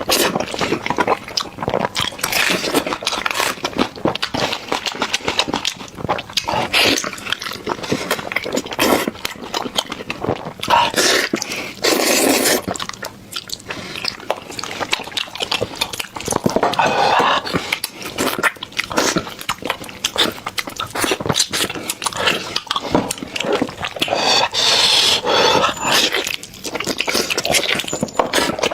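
Close-miked eating of gelatinous braised beef trotters: wet chewing, lip-smacking and sucking, with a few longer slurps.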